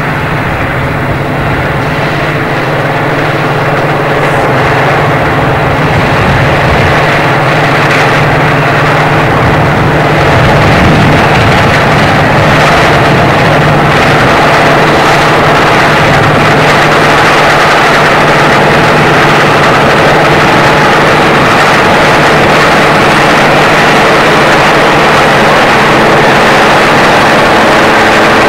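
Combine harvester running while it harvests grain: a steady, loud engine and machinery drone that grows louder over the first ten seconds or so as it comes close, then holds.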